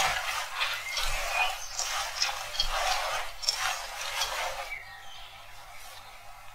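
A hand mixing wet grated potato in a stainless steel bowl: a quick, uneven run of short rustling noises that stops about three-quarters of the way through, leaving it much quieter.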